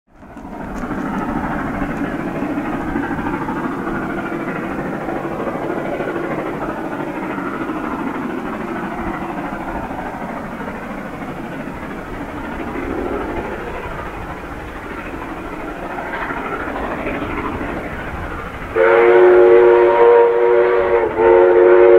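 Steam locomotive 5917 approaching, a steady rumble, then sounding its chime whistle loudly from about three seconds before the end: several notes held together, with a short break just before the end.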